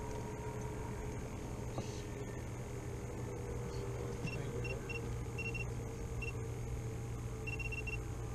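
Short, high electronic beeps at one pitch, some single and some in quick runs of three or four, starting about four seconds in, over a steady low hum.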